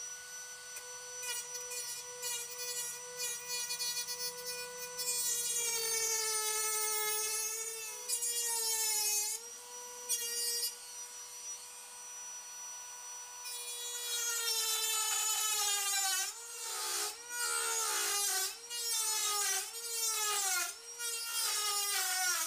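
Dremel rotary tool with a cutting wheel, running at a steady high whine and cutting thin car-body sheet metal. Its pitch sags and recovers again and again as the wheel bites into the quarter panel, several times in quick succession in the last few seconds.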